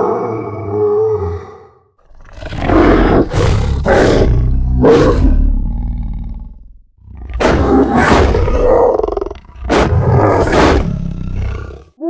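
Designed demon-wolf creature sound effect: two long, snarling monster roars, each with several sharp surges, following the fading end of a growl.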